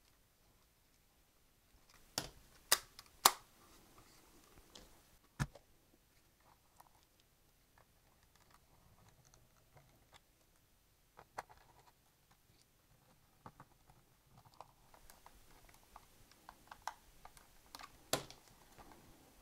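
Sparse clicks and knocks of small plastic parts as a Sony TC-40 cassette recorder's case is handled and fitted back together: three sharp snaps about two seconds in, a single knock a couple of seconds later, then faint small ticks and one more sharp click near the end.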